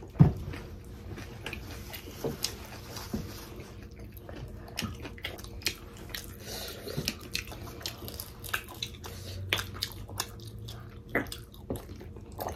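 Close-miked wet biting and chewing of juicy pork momo dumplings, a run of irregular small smacks and clicks. One louder thump comes right at the start.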